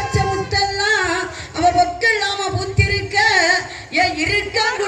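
Women singing a kummi song, the Tamil folk song for the clapping dance, with a wavering, ornamented melody.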